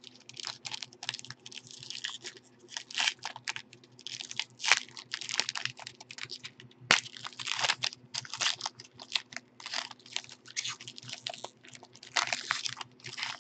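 Foil wrapper of a trading card pack crinkling and tearing as it is opened by hand, in a run of irregular rustles, with one sharp click about seven seconds in. A faint steady low hum runs underneath.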